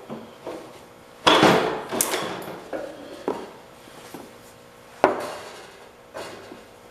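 Tools and parts being handled during a tractor repair: a series of sharp knocks and clatters, the loudest about a second in and again about five seconds in.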